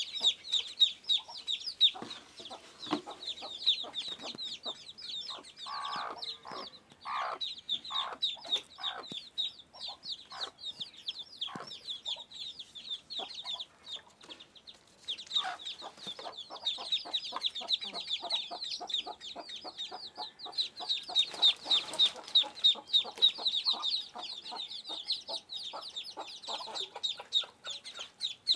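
A brood of Muscovy ducklings peeping without pause, a dense chorus of short, high peeps. A few lower calls come in between about six and nine seconds in.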